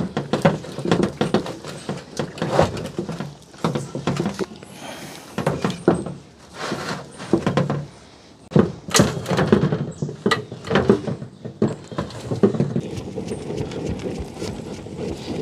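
A wood fire under a cast-iron pot being fanned hard with a plastic fan, to keep damp wood burning. Runs of quick flapping whooshes of air, with short pauses.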